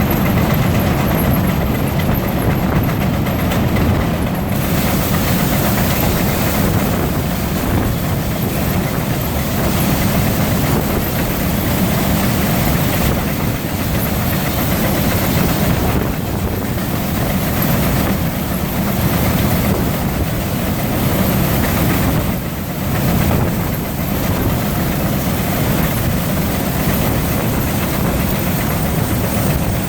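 Three Frick steam traction engines running steadily under belt load, driving two belt-driven fans and a power eater, their combined exhaust and machinery making a continuous dense, low-heavy noise.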